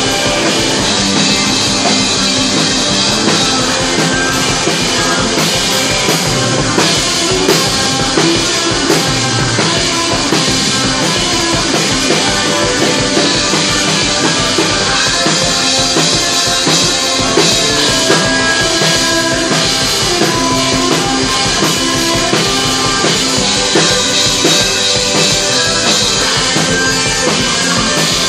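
Live instrumental rock: electric guitar and a drum kit played loud together, with a steady, busy drum beat under sustained guitar notes.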